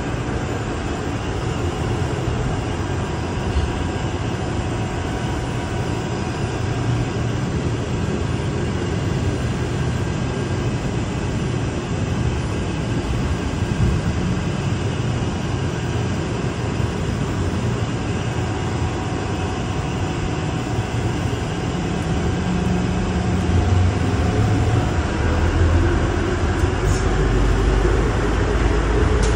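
Atlanta airport Plane Train, an automated underground people mover, heard from inside a moving car: a steady low rumble and running noise with faint steady whine tones. Near the end a whine rises in pitch and the rumble grows louder.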